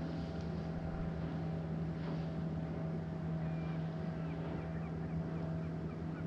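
A motor running steadily with a constant low hum. From about halfway through, a series of short chirps sounds over it.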